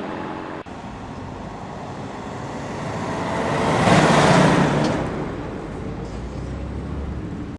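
A motor vehicle passing by: a low engine rumble with rushing road noise that swells to its loudest about halfway through, then fades and cuts off abruptly.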